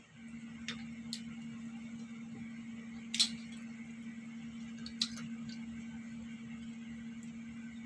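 A few short clicks and clinks of chopsticks and scallop shells being handled, the loudest about three seconds in, over a steady low hum.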